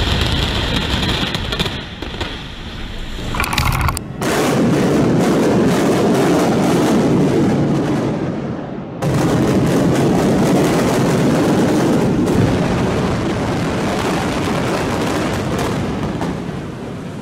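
Explosive demolition charges detonating in a rapid crackling sequence, then the rumble of a 13-story reinforced-concrete building collapsing. The sound breaks off and starts again abruptly about four and nine seconds in.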